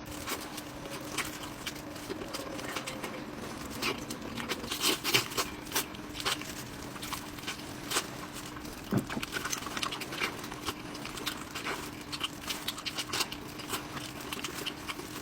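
Close-miked eating: irregular, wet chewing clicks and smacks, coming unevenly throughout, over a faint steady hum.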